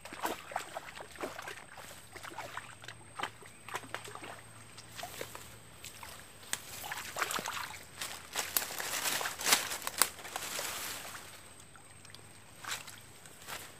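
Shallow swamp water sloshing and splashing as a man wades and works in it, with grass and stems rustling and crackling against him in irregular bursts. The splashing is busiest and loudest from about seven to eleven seconds in.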